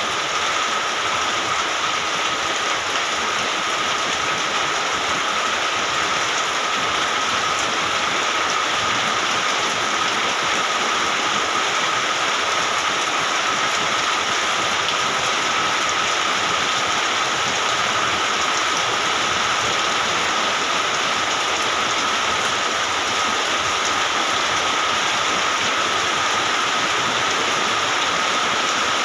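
Heavy rain falling steadily, an even, unbroken hiss of rain on surfaces.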